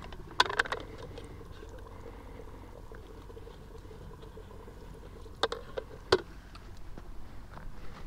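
A hand dipping into a bait bucket of live shrimp in water: brief splashing and knocking against the bucket about half a second in, then again around five and a half to six seconds in.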